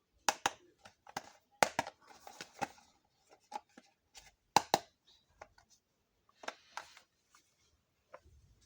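Small hard toy kitchen pieces being handled: sharp clicks and taps, often in quick pairs, with light scraping and rustling between them.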